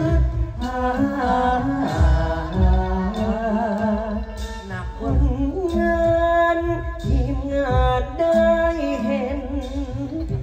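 Likay singing: a performer's wavering, ornamented vocal line through a headset microphone and PA, over instrumental accompaniment.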